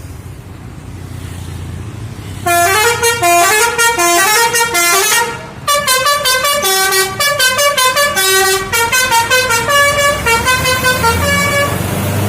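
Telolet basuri bus horn playing a fast melody of short stepped notes, starting about two and a half seconds in with a brief break near the middle, over a low engine rumble.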